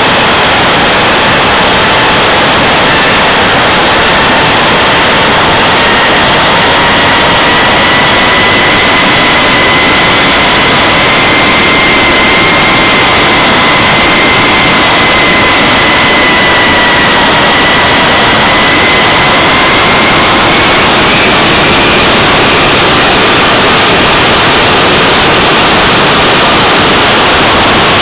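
Radio-controlled model jet in flight, picked up by a camera on its own fuselage: a loud steady rush of engine and airflow with a whine that drifts slightly up and down in pitch.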